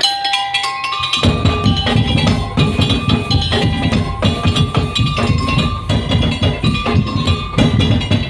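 Madurese tong-tong ensemble playing: wooden slit drums and drums beat a fast, dense rhythm under a pitched melody. The low drums come in about a second in, after a brief moment with only the higher melodic parts.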